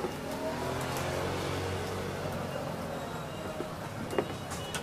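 A motor vehicle's engine running close by, swelling over the first couple of seconds and then easing off. There is a knock at the start and a few light metallic clinks about four seconds in.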